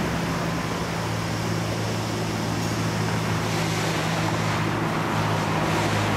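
Street ambience at a quiet grade crossing: steady road-traffic and wind noise over a constant low engine-like hum.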